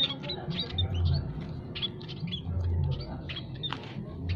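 Several munias, scaly-breasted munias and Java sparrows, chirping continuously: many short, thin, high chirps overlapping one another, over a low intermittent hum.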